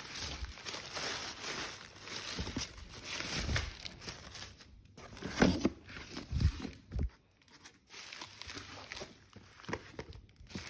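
Parcel packaging crinkling and tearing as it is unwrapped by hand, with a few soft thumps around the middle.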